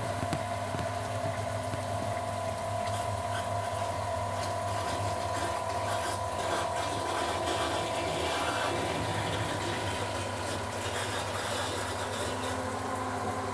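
A steady mechanical hum made of several fixed tones, with light scattered crackling over it.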